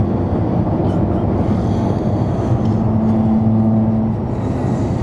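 Steady low road and engine rumble heard inside the cab of a moving pickup truck, with a steadier hum coming in for about a second and a half in the middle.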